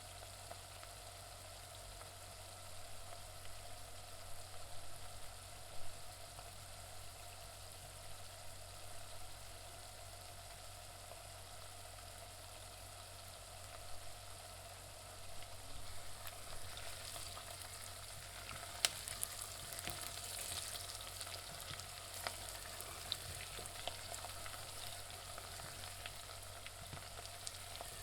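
Onions frying in a pan: a steady sizzle with scattered crackles and pops, growing livelier and more crackly from about halfway through.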